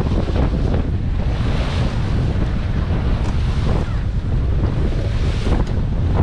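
Strong wind rumbling on the microphone over the rush of water along the hull of a Contessa 26 sailboat heeled hard and driving through choppy water. The hiss of waves and spray swells twice.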